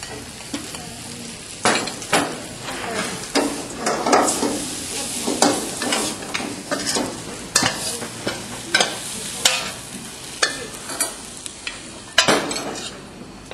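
Metal wok spatula scraping and tossing Phad Thai rice noodles around a hot carbon-steel wok, with irregular scrapes and clanks about once a second over a steady frying sizzle, as the crushed peanuts are stirred in. The loudest scrape comes near the end.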